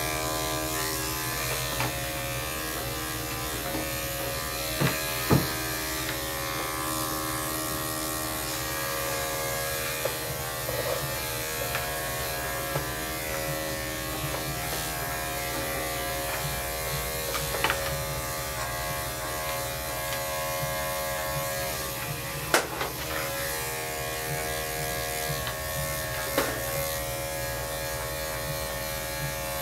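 Electric dog grooming clipper with a number 7 blade, running with a steady buzzing hum while clipping a dog's body coat. A few sharp clicks are heard over it.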